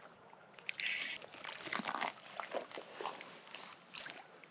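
Water splashing and trickling in irregular spurts, with a few sharp clicks just before a second in.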